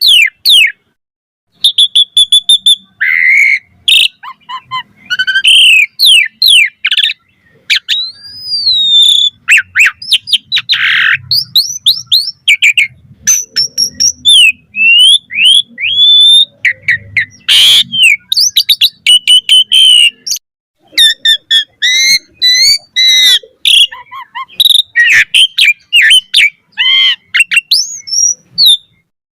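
Asian pied starling (jalak suren) singing a fast, varied song of clear whistles, quick rising and falling sweeps and chattering notes, broken by a few short pauses.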